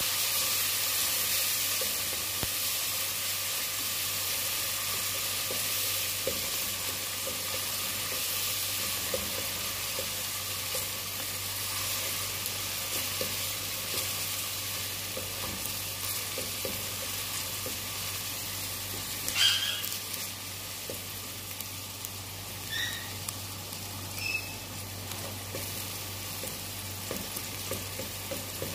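Chopped onions frying in hot oil in a pot, a steady sizzle with the light scrapes and taps of a wooden spoon stirring them. A brief high squeak about two-thirds of the way in, and a couple of fainter ones after it.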